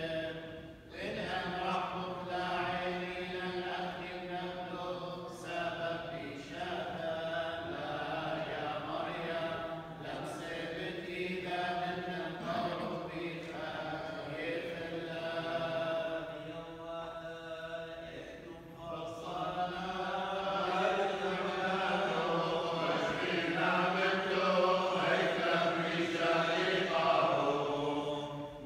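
Male clergy chanting Chaldean funeral prayers together, long sustained sung lines that swell and fall. The chant softens briefly about two-thirds of the way through, then comes back fuller.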